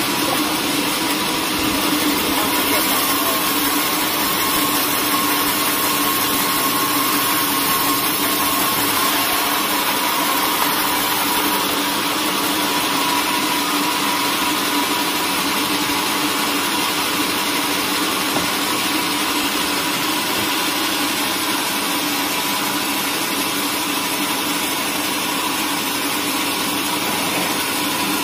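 Large band sawmill running steadily as its blade rips a slab lengthwise off a log: an even machine hum and hiss with a faint steady whine.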